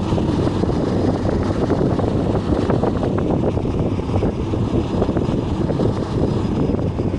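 A bus running along the road: a steady low rumble.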